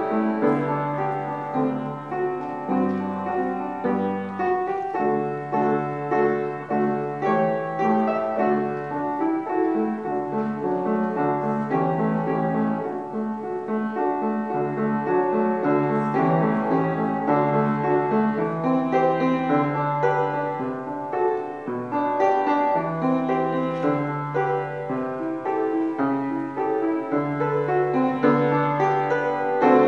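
Upright piano played solo: a slow piece with held bass notes under repeating broken chords.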